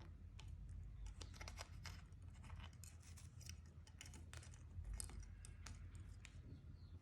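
Faint, rapid scratching and clicking, many short ticks over a few seconds, over a low steady hum.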